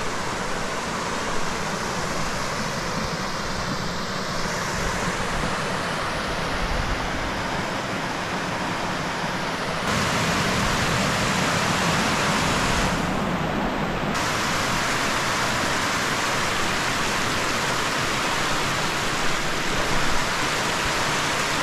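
Mountain stream rushing down a series of small rock cascades: a steady hiss of water that steps up louder about halfway through.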